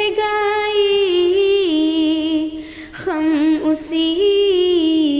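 A woman's solo voice singing an Urdu naat unaccompanied. She draws out a single syllable in long held notes that step up and down in pitch, with a brief dip for breath about two and a half seconds in.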